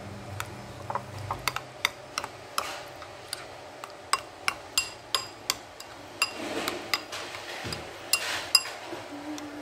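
A metal spoon stirring thick yogurt in a ceramic bowl, clicking and clinking against the bowl many times at an uneven pace, some strikes leaving a short ring, with a few brief wet scrapes.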